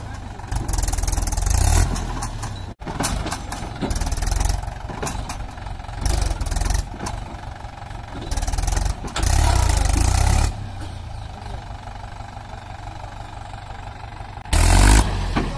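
Mahindra 575 DI tractor's diesel engine running under heavy load and being revved hard in about five bursts, dropping back to a lower steady run between them. The longest burst comes around the middle and the loudest near the end. The tractor is straining to pull a fully loaded trolley out of deep sand where its wheels have dug in.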